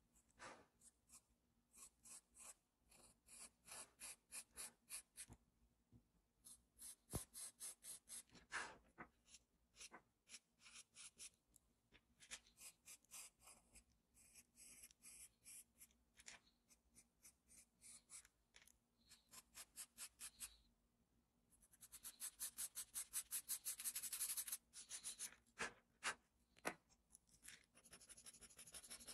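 Charcoal pencil shading on paper: quiet, quick scratching strokes, about four a second, in runs separated by short pauses, with a denser, louder run about three-quarters of the way through.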